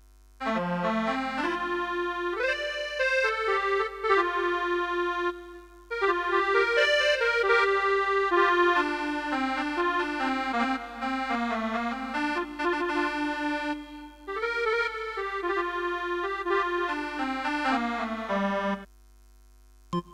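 Roland XPS-10 keyboard playing a melody on a luk thung/mor lam sample-set voice, with a lower line that slides up and down in pitch. It plays in three phrases with two brief breaks and stops shortly before the end.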